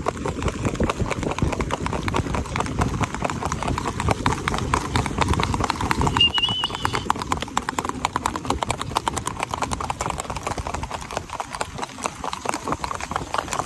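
A ridden horse's hooves striking a paved road in rapid, even hoofbeats. A brief high-pitched tone sounds about six seconds in.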